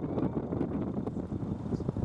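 Wind buffeting the microphone: a gusty, uneven low rumble.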